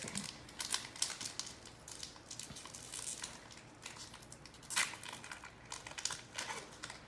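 Foil wrapper of a Pokémon trading card booster pack crinkling as it is torn open, a string of irregular crackles with a louder one a little before five seconds in.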